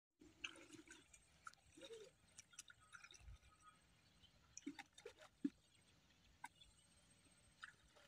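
Faint, scattered splashing of people wading in shallow water, with small clicks and drips here and there.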